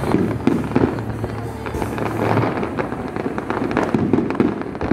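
Fireworks display: aerial shells bursting in quick succession, many bangs and pops overlapping one another.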